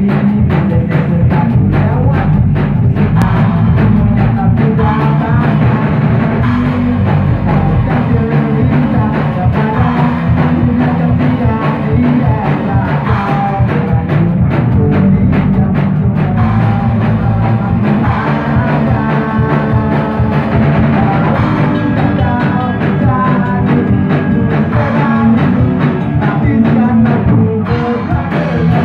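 A rock band playing live in a small rehearsal room: drum kit with electric guitars and bass, loud and continuous.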